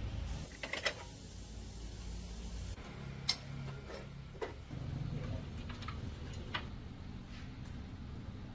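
Scattered light clicks and knocks of metal tools and parts being handled, over a low steady hum.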